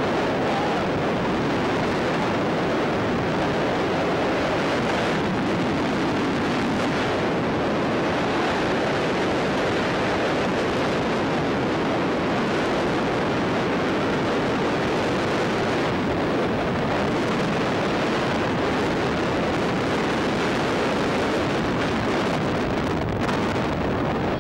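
Steady, loud rush of freefall wind buffeting the camera microphone during a tandem skydive.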